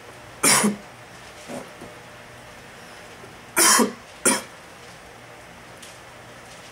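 A man coughing in short fits: one loud cough about half a second in, a faint one after it, then two more close together around three and a half seconds in, the coughing that follows inhaling a dab of cannabis concentrate.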